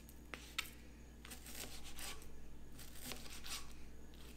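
Chef's knife slicing raw chicken breast into strips on a plastic cutting board: faint, soft cutting strokes, with a couple of light clicks of the blade on the board about half a second in.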